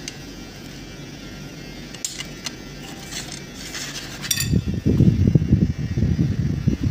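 Light metallic clicks and rattles of the aluminium transom window's hardware being handled while the stay is fitted to the sash. About four seconds in, loud irregular low rumbling buffets the microphone at the open sash.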